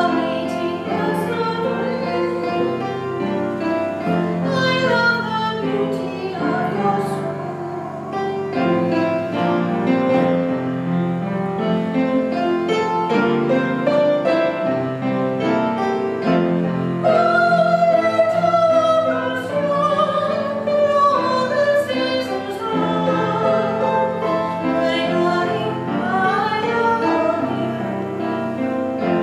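A woman singing a slow, sustained melody in a classical style, accompanied by cello and other instruments.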